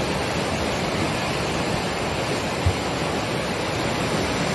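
Swollen, muddy flood river rushing past in a steady, even torrent of water noise, with one brief low thump a little over halfway through.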